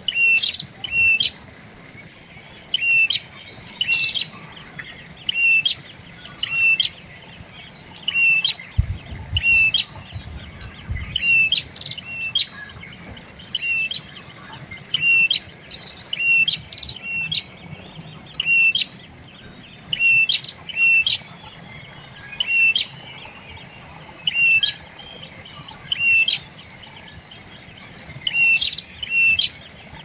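Tailorbird (sold as prenjak lumut) calling: loud, sharp, high notes, mostly in pairs, repeated steadily about once a second.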